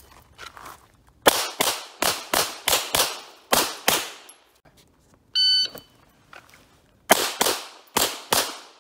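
A rapid string of about eight pistol shots, then an electronic shot-timer beep a little past the middle, followed at once by the start of another fast string of shots.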